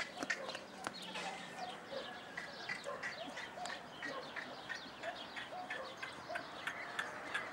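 Hoofbeats of a young Andalusian (PRE) stallion moving loose on wet, slippery sand, as irregular soft strikes, with birds chirping throughout.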